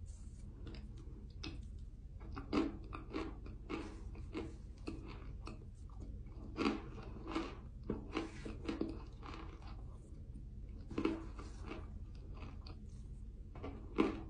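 Biting and chewing chunks of raw cornstarch: clusters of crisp crunches with short pauses between, over a steady low hum.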